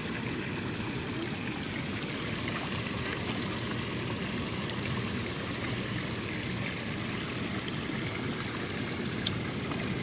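Hot tub jets churning and bubbling the water while the spa's waterfall spout pours into the tub: a steady rushing of water.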